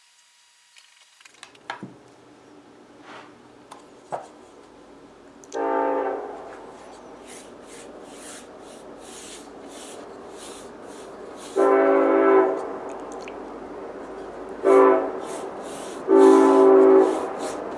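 High-voltage Lichtenberg burn in wet, baking-soda-soaked wood, driven by a microwave oven transformer: crackling and sizzling from about a second in, broken by four loud buzzing bursts of electrical arcing, each about half a second to a second long, the last ones close together.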